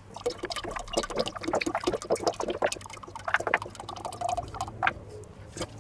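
Sunflower oil pouring out of an upturned plastic bottle into a stainless steel pot, glugging and splashing in quick, irregular pulses.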